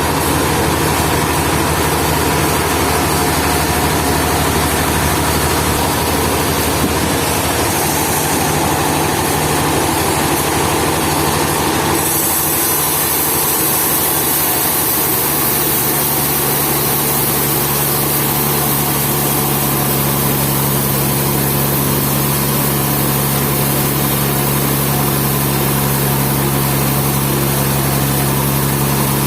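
An engine running steadily. About twelve seconds in the sound changes: a high hiss comes up and a steady low hum settles in.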